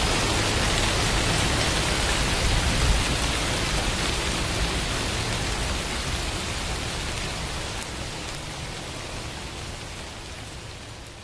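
Steady rain falling, with no music over it, slowly fading out.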